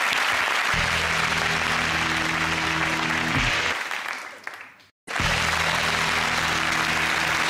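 Studio audience applauding over the programme's theme music, a held chord. Both fade out to a brief silence about five seconds in, then the applause and the same music start again.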